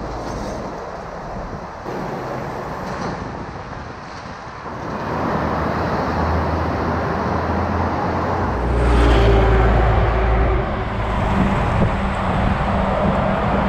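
Heavy road traffic from close alongside: lorries and buses running past with a steady noise of engines and tyres. A deep engine rumble from a heavy vehicle is loudest from about eight and a half to eleven seconds in.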